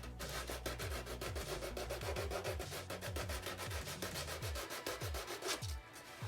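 Hand sanding of the painted model-airplane cowling with sandpaper, in rapid back-and-forth rubbing strokes, smoothing a flawed paint finish before it is repainted.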